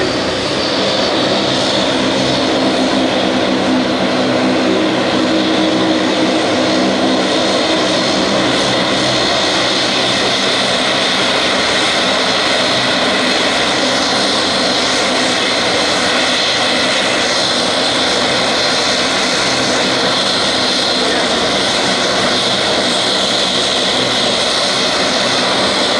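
Turboprop airliner (De Havilland Dash 8 Q400) taxiing with both engines running: a loud, steady rushing drone with a high whine held throughout.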